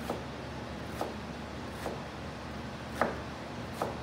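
Chef's knife mincing onion on a plastic cutting board: five sharp knocks of the blade on the board, about one a second, the loudest about three seconds in, over a steady low hum.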